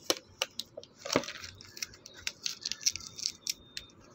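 Fingers and nails handling a cardboard gift box as its lid is worked open: a quick, irregular run of sharp taps, clicks and short scrapes, with the loudest one about a second in.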